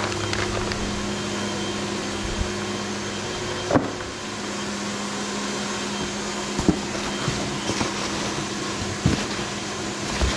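Steady machine-shop hum with a few low held tones under a broad whir, broken by a handful of short knocks as metal workholding parts are handled.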